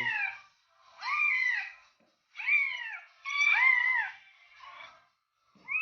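Cat meowing: a string of drawn-out meows about a second apart, each rising and then falling in pitch.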